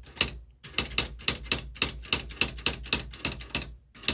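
Smith Corona SL 500 electric typewriter's keys being struck one after another in a steady rhythm, about four strikes a second, with two brief pauses, over the low hum of its running motor.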